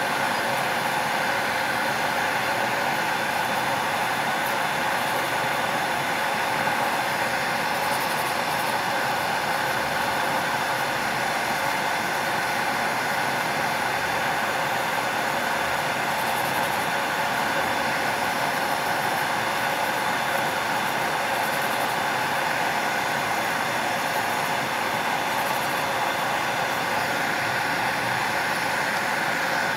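Nail dust collector fan running steadily, a constant whir with a hum in it.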